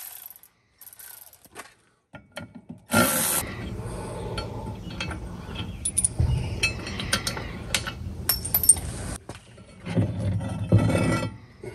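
A short loud burst of noise about three seconds in, then scattered metallic clinks and knocks as the zinc hull anode and its fastenings are worked loose from the boat's hull.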